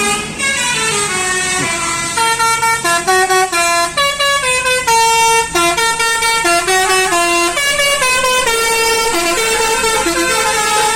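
Indonesian 'telolet basuri' musical bus horn playing a tune of quick stepped notes, opening with a falling pitch sweep.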